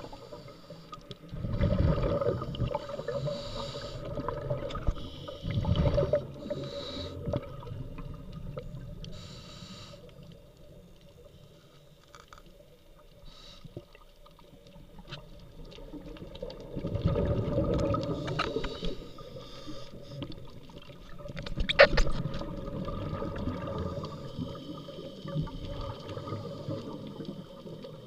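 Scuba diver's breathing heard underwater through the camera housing: regulator exhaust bubbles gurgling out in bursts a few seconds apart, with a quieter spell midway and a sharp knock about three quarters of the way through.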